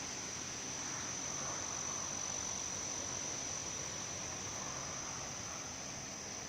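Steady wind noise with a constant high-pitched tone running under it.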